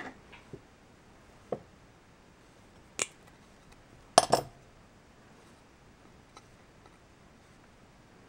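A few light clicks and taps as the aluminum bottle stove is handled and its fiberglass wick worked into place. The loudest is a sharp click about three seconds in, with a double click a second later.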